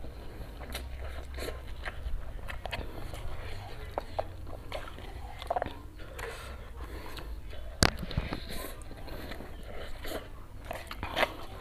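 Close-up eating of cup instant fried noodles: biting, chewing and sucking in forkfuls of noodles, with small clicks of the fork in the cup. There is one sharp loud click nearly eight seconds in.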